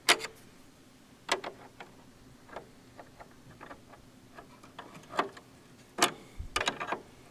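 Irregular metallic clicks and taps of a 10mm wrench working a nut, a few sharp ticks scattered over several seconds with a quick cluster near the end.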